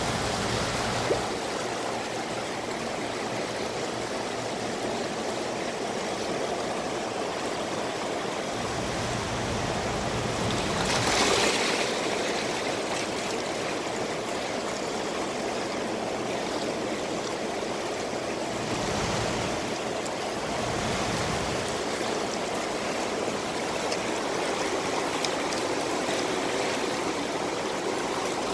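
River water rushing and splashing over shoreline rocks, a steady rush that grows briefly louder about eleven seconds in.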